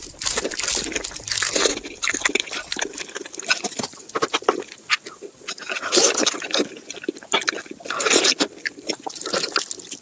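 Close-miked eating of Korean raw marinated crab: wet sucking, slurping and chewing of the soft meat and marinade, with many small clicks and crunches.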